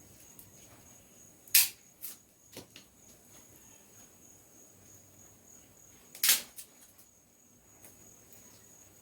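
Wooden sticks cracking sharply twice, about a second and a half in and again about six seconds in, with a few lighter clicks after the first, as sticks are broken up and put on a small charcoal fire.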